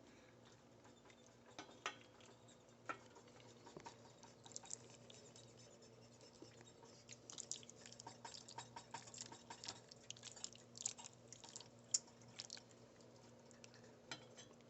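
Faint chewing of pasta, a scatter of small wet mouth clicks that grow busier about halfway through, over a faint steady low hum.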